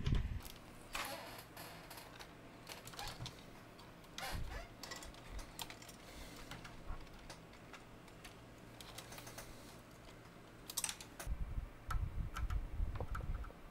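Irregular small clicks and taps of hands handling wires, connectors and circuit boards of a dismantled stereo amplifier, with a cluster of louder clicks and low bumps near the end.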